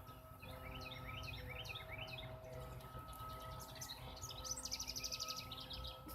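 Songbirds chirping in a string of short calls, then a fast trill about four and a half seconds in, faint over a steady low hum.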